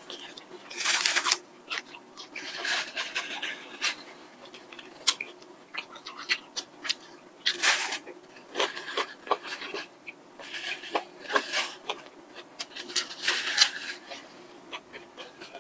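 Close-up eating sounds: crunchy chewing of a breaded fried chicken nugget, in many small clicks, with repeated short breaths blown out through the mouth.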